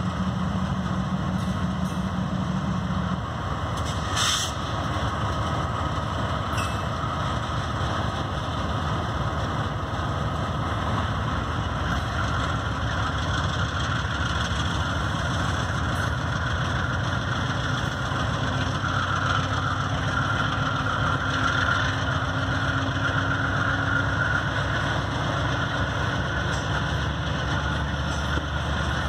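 Two GE B40-8 diesel locomotives pulling a double-stack container train, their engines running steadily under power, with the rumble of the stack cars rolling past. A thin whine comes up past the middle and then eases.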